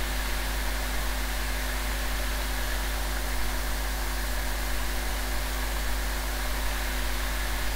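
Steady, even hiss with a low hum and faint steady tones beneath it: the recording's own background noise, with nothing else standing out.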